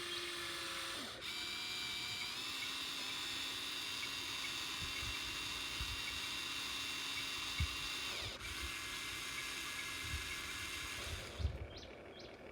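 Small electric motors of a radio-controlled model excavator whining steadily, the pitch stepping up and down a few times as the controls change, with a few light knocks.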